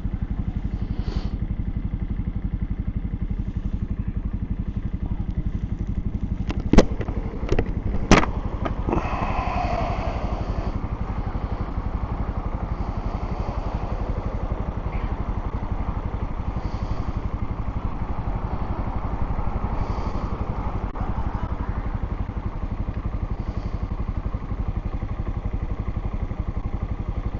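Suzuki TU250X's single-cylinder engine running steadily, heard from inside the rider's helmet. A few sharp knocks come about seven to eight seconds in.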